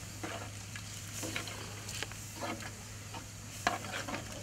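Metal spoon stirring beans in a large aluminium pot, with irregular scrapes and knocks against the pot; the sharpest knock comes near the end.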